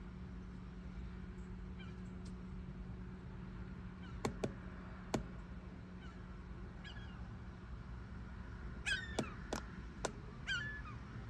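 Short bird calls, a couple of times near the end, over a steady low hum of a boat engine, with a few sharp clicks in between.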